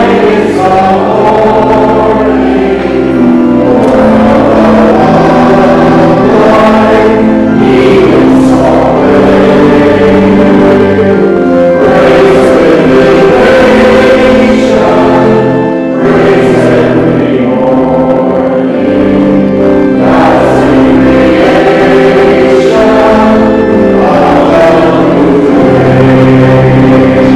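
Church choir singing a hymn with organ accompaniment, in sustained notes that change pitch every second or two.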